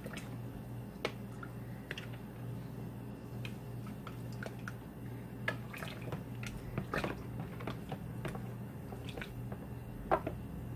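A spoon stirring a plastic pitcher of juice thick with chia seeds and chunks of strawberry and raspberry: irregular light knocks and clicks against the pitcher with soft wet squishing. A faint steady low hum runs underneath.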